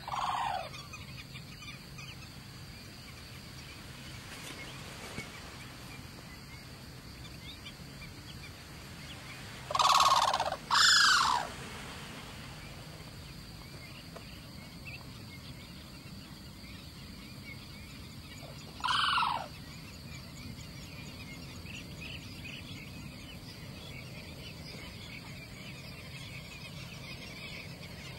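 Cranes calling: four loud, short calls, each falling in pitch, over a faint steady background. One comes at the start, two close together about ten seconds in, and one more several seconds later.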